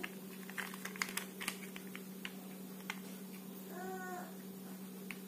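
A cat meows once, a short rising-then-falling call, about four seconds in. Sharp clicks of hard plastic toy truck parts being handled come mostly in the first second and a half, over a steady low hum.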